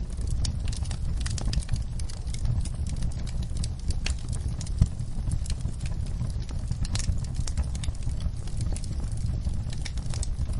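Wood logs burning in a fireplace, crackling with many small irregular pops over a steady low rumble of the flames; one sharper pop just under five seconds in.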